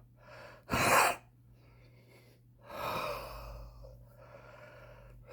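Heavy breathing of a man smoking a cigarette: a sharp, loud gasping intake about a second in, then a long breathy exhale starting near the middle and fading away.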